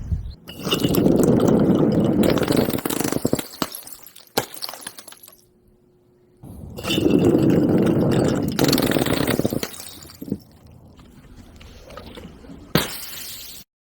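Balloons being burst: two spells of dense crackling pops about three seconds each, with a few single sharp pops in between and after.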